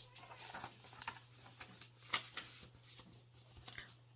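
Faint scattered clicks and rustles over a steady low hum, with one sharper click about two seconds in.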